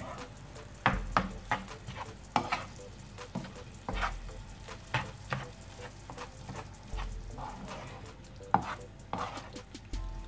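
Wooden spatula stirring and scraping minced chicken around a non-stick frying pan, with irregular knocks and scrapes every second or so over a soft sizzle as the mince cooks in its own juices.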